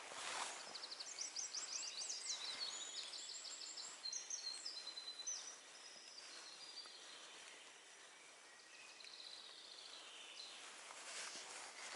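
Songbirds singing quick runs of short, high, repeated notes, loudest in the first half, with a fainter song near the end, over a soft steady hiss.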